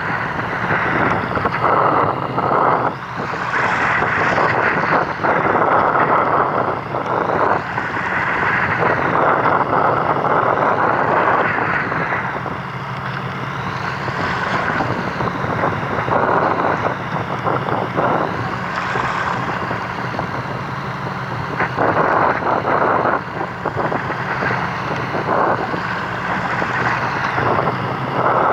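A fishing boat's engine running steadily, with wind buffeting the microphone and water noise swelling and easing every few seconds.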